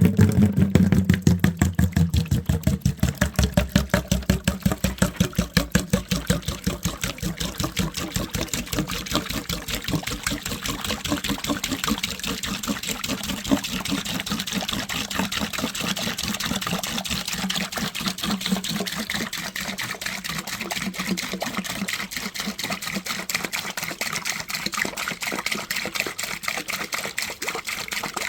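Water pouring out of a gas water heater's open relief-valve port into a bucket lined with towels, pulsing rapidly in a glugging rhythm of about five pulses a second as the upper part of the tank drains. The pulsing is strongest in the first several seconds and then settles into a steadier pour.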